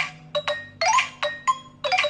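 Nokia 105 (2013) mobile phone ringtone playing: a quick melody of short, bell-like mallet notes, three or four a second, each dying away fast.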